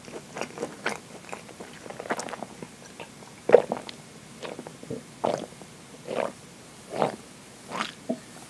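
Close-miked mouth sounds: soft wet clicks at first, then a drink from a glass swallowed in a run of about six gulps, roughly one a second.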